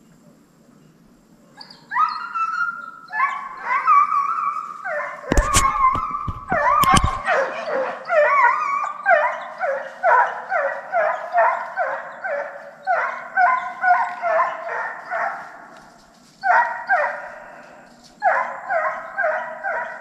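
Deer-hunting dogs yelping and barking in short, quick calls, two or three a second, after a few drawn-out whining calls at the start. Several sharp knocks come about five to seven seconds in.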